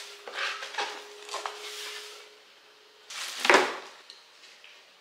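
Cardboard and plastic packaging of a boxed pet drinking fountain being handled: small knocks and rustles, then one louder rustle or scrape about three and a half seconds in.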